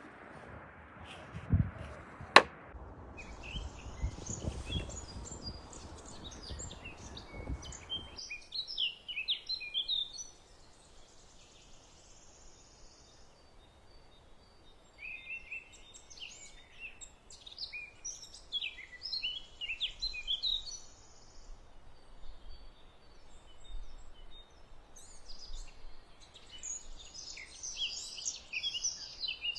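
Small birds chirping and singing in short bursts that come and go. For the first several seconds a rubbing, scraping noise with low knocks runs underneath, typical of hand-sanding wood, with a sharp click about two seconds in.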